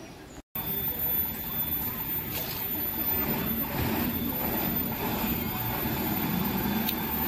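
A truck's engine running with a steady low hum that grows louder in the second half as it comes along the path, over outdoor background noise. The sound starts after a brief silent break about half a second in.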